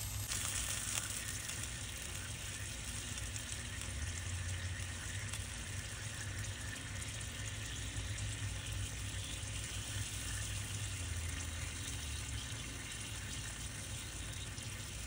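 Steady sizzling of bacon-wrapped armadillo eggs cooking on the grate of a Big Green Egg charcoal grill, the bacon fat and fresh barbecue glaze crackling over the hot coals.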